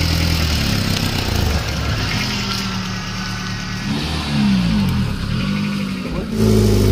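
Maruti Suzuki Zen's 1000cc petrol engine running soon after its first start in months of standing. It runs steadily, is revved up and back down about four seconds in, and gets louder again near the end.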